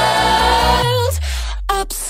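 Background music with a sung vocal line over a steady beat; about a second in it drops away to a falling bass note and short, clipped vocal stabs.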